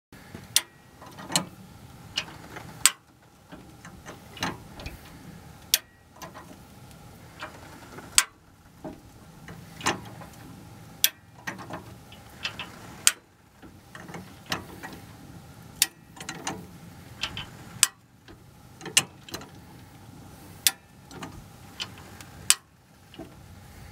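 Hi-Lift style farm jack being pumped by its handle to raise a vehicle, its climbing pins snapping into the steel bar with a sharp metallic click every one to three seconds.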